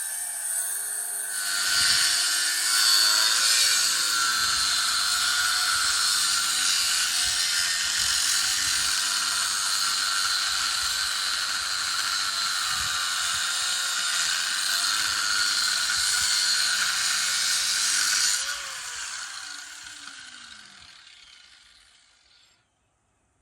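Grinder cutting through the steel weld that holds a hydraulic cylinder eye to its barrel: a steady, high grinding hiss that bites in harder after about a second and a half. Near the end the grinder is switched off and spins down over a few seconds to silence, its pitch falling.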